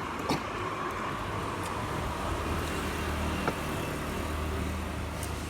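A motor vehicle's engine runs close by as a steady low hum under a wash of road noise, with a couple of short clicks, one just after the start and one about three and a half seconds in.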